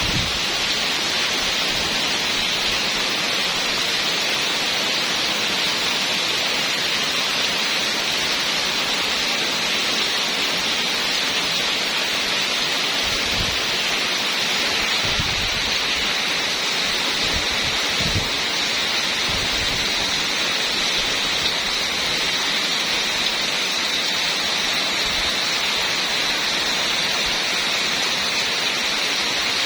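Heavy rain pouring steadily, a dense even hiss, with a few brief low rumbles around the middle.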